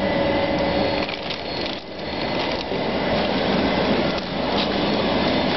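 Belt-type pine nut roasting machine running, its mesh conveyor belt moving: a steady mechanical noise with a faint steady hum, dipping briefly about two seconds in.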